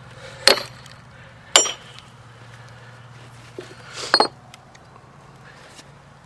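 Two ringing metallic strikes of a hammer on steel splitting wedges driven into a maple log, about a second apart, then a metallic clank about four seconds in.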